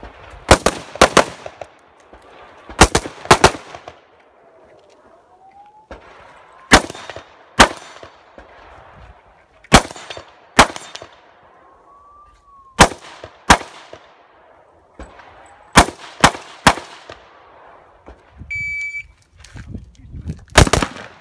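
Semi-automatic AR-style rifle fired in quick double taps, two shots per target, a pair about every three seconds and once three shots in a row. Near the end a shot timer's electronic start beep sounds, followed by another pair of shots.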